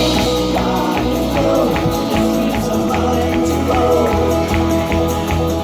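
Song played over a show's sound system: a voice singing over held chords and a steady percussion beat.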